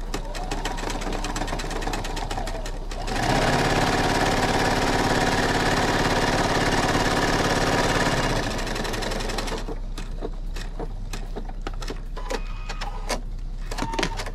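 Pfaff computerized sewing machine stitching through flannel: it runs at a moderate pace for about three seconds, then at full speed with a steady motor whine for about five seconds, then stops. Scattered light clicks follow.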